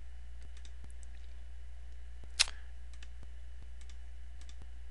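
Computer mouse clicks over a steady low electrical hum: several faint clicks and one louder click about two and a half seconds in.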